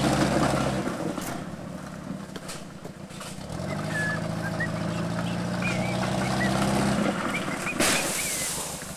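1985 Pontiac 6000's engine running hard as the car is driven through mud. The note fades about a second in and comes back strong as the car reverses at speed, then a sharp thump just before the end as the rear bumper hits the trees.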